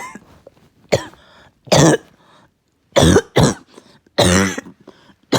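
A person's uncontrollable, barking cough: a fit of about five harsh coughs in quick, irregular succession.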